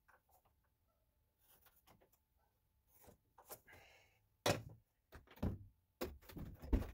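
Handling noises of a white PVC drain fitting and hand tools: scattered faint clicks, a short pencil scratch as the fitting is marked for cutting, then several sharper knocks from about four and a half seconds in as a cordless reciprocating saw is brought into place.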